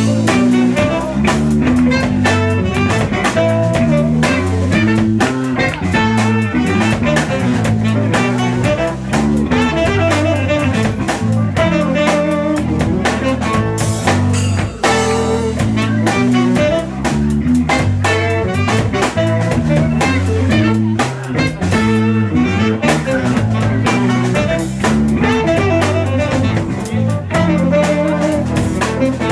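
Live funk band playing a steady groove: drum kit, electric bass line, electric guitar and saxophone.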